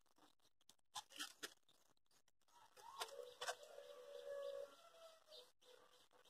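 Near silence with a few faint clicks about a second in, then a faint low call with a short rising glide about three seconds in, held briefly.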